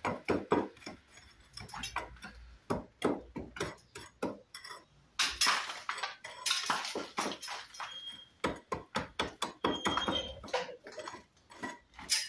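Hand hammer chipping away the faces of damaged bricks in a wall: a quick, irregular run of sharp strikes on brick, a couple of them with a short metallic ring, cutting the bricks back to a recess ready to take brick slips.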